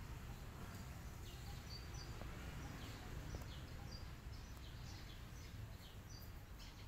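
Small birds chirping: short, high, slightly falling chirps, a few each second, over a faint low steady background rumble.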